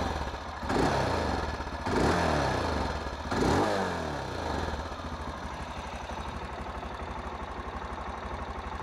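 Aprilia Pegaso 650's single-cylinder engine with its stock exhaust, idling just after starting, blipped three times in quick succession, each rev rising and falling back, then settling to a steady idle.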